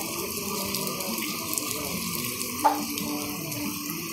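Heavy rain falling on flooded, muddy ground: a steady hiss of rain and running water. A single brief sharp sound stands out about two-thirds of the way in.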